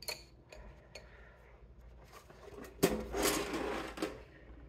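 Art supplies being handled on a desk: a few light clicks of colored pencils being set down, then about three seconds in a sudden clatter and scrape of a metal pencil tin that lasts about a second.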